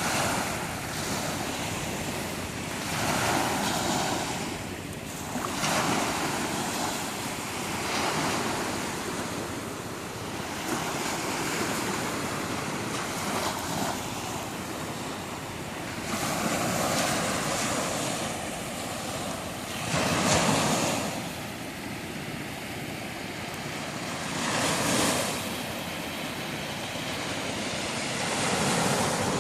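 Sea waves breaking on the shore: a steady rush of surf that swells as each wave breaks, every few seconds.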